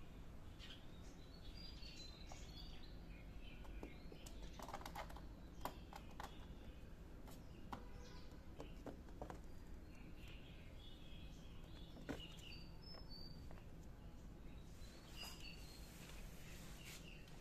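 Faint birds chirping now and then over a low steady background hum, with a few soft clicks.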